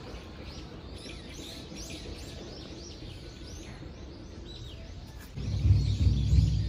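Small birds chirping, many short high calls overlapping, over faint steady outdoor noise. About five seconds in, a much louder low, pulsing rumble comes in.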